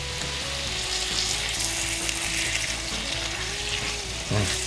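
Wine-and-butter pan sauce sizzling steadily around fish fillets in a frying pan as it reduces, with a spatula moving through the pan.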